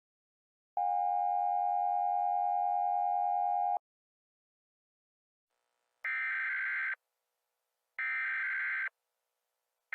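A steady electronic tone lasts about three seconds. After a pause of a couple of seconds come two harsh, buzzy electronic data bursts, each about a second long and a second apart, like the SAME header bursts that open an Emergency Alert System broadcast.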